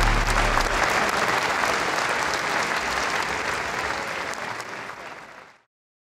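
Audience applauding after a match-ending submission, fading away to silence near the end. Background music stops about half a second in.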